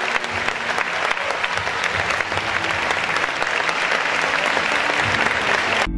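Audience applauding, a dense steady clapping that cuts off suddenly near the end.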